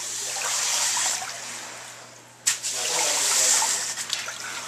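Shallow floodwater on a floor being pushed and splashed with a push broom. The swishing fades about two seconds in, then a fresh stroke starts suddenly and runs loud again.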